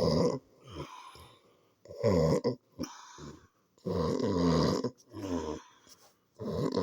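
A man snoring in his sleep: loud, rough snores about every two seconds, with quieter breaths between them.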